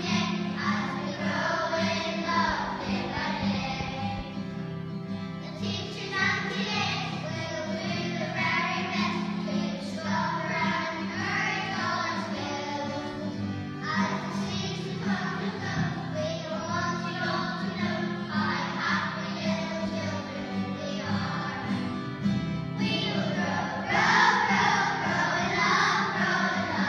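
A class of young primary-school children singing a song together over instrumental backing.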